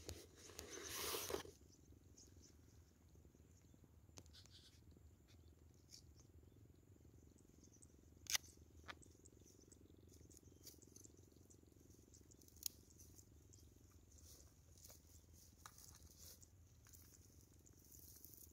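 Mostly near silence: a brief rustle at the start, then a few faint, sharp clicks spread over the rest, as a mesh net bag of mud crabs is handled.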